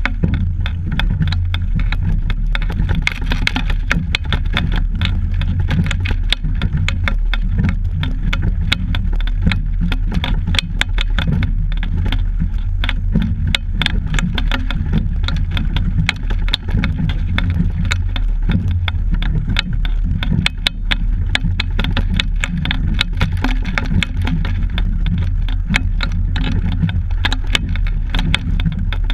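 Steady rumble and rattling picked up by a camera mounted on a rowing double scull under way, with constant small clicks through it.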